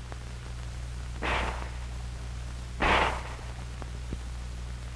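Two handgun shots about a second and a half apart, over a steady low hum from the old film soundtrack.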